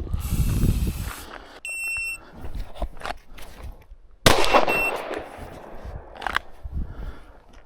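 A shot-timer beep about a second and a half in, then, about two and a half seconds later, a single loud pistol shot, fired after a draw from concealment, with a long echo. A second short beep at the same pitch follows the shot.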